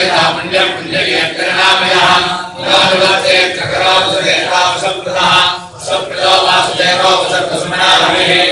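A group of men chanting mantras together in long, loud phrases, with short breaks between phrases about two and a half and six seconds in.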